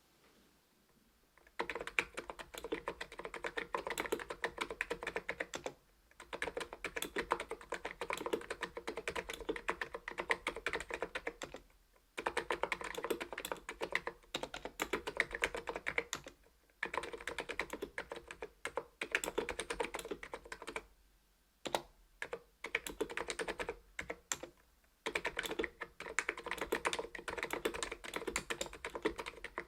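Typing on an ABKO KN01 keyboard with its stock 45 g switches: fast runs of keystrokes that begin about a second and a half in, broken by short pauses every few seconds.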